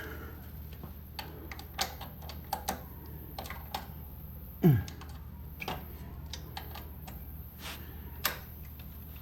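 Scattered light clicks and taps of hand tools against metal motorcycle parts. About halfway through there is one short, louder sound whose pitch drops quickly.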